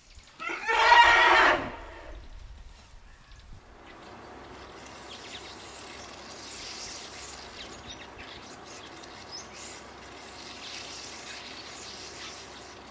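African elephant trumpeting once, a loud call of just over a second. A few seconds later a steady outdoor background with faint bird and insect chirps takes over.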